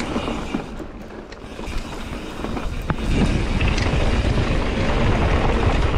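Mountain bike riding on a dirt trail: wind rushing over the microphone and the tyres and bike rattling over the ground. It dips briefly about a second in and builds again from about three seconds, with a couple of sharp knocks.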